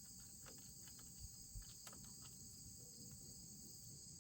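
Faint, steady chirring of crickets or similar insects, with a few faint clicks and taps from hand work on the engine shroud.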